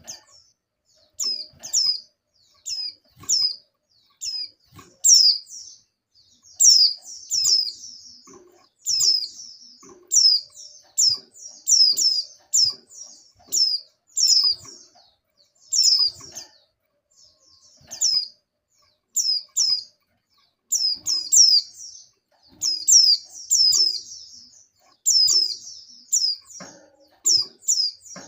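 Female white-eye (pleci) giving short, high calls that slide downward, repeated singly and in quick clusters of two or three with brief pauses between. It is the call keepers take for a female in breeding condition calling to a male.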